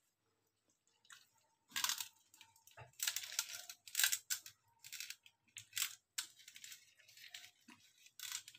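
A hand squeezing and mashing water-soaked, swollen dry dog kibble and rice in a steel bowl: irregular bursts of wet squishing that start about two seconds in.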